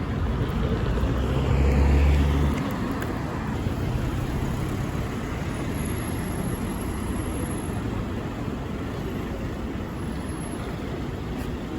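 Steady low rumble of road vehicles, swelling louder for a second or two near the start as a heavier engine hum passes, then settling back to an even drone.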